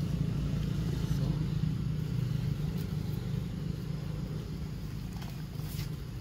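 A motor vehicle's engine running steadily as a low rumble, with a faint click or rustle near the end.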